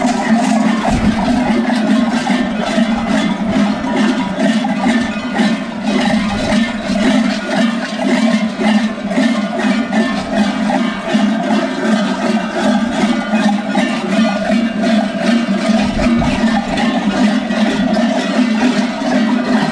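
Many large goat bells worn by Skyros Geroi carnival dancers clang together without pause as the wearers move, a dense, even ringing that never stops.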